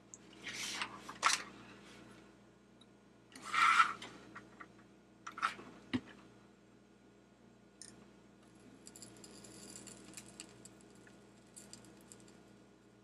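Small handling noises on a workbench: rustles and knocks as a soldering gun is picked up and its tip is brought to a circuit board. There is a sharp click about six seconds in, and a faint high hiss a little later.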